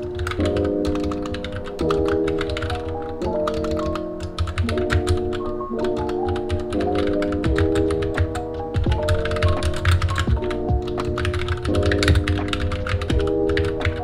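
Continuous fast typing on a compact backlit mechanical keyboard: a rapid, uneven stream of keystroke clicks. Soft background music of sustained chords plays underneath.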